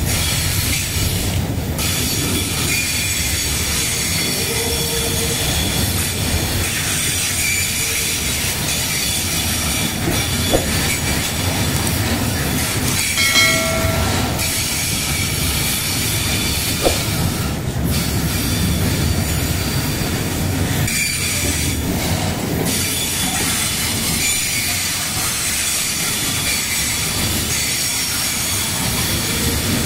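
Loaded freight train flatcars rolling past with a steady rumble of steel wheels on the rails and a high, steady wheel squeal. There is a brief louder screech about thirteen seconds in, and two sharp clanks.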